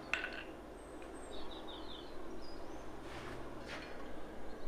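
One last hammer blow on the stainless steel fork tines against the anvil, with a brief metallic ring, ending a run of forging strikes. After it the shop is quiet, with a few faint bird chirps and two faint brief noises later on.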